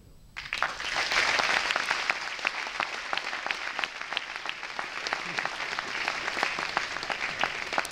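Audience applause that breaks out about half a second in and carries on steadily, with single sharp claps standing out of the mass of clapping.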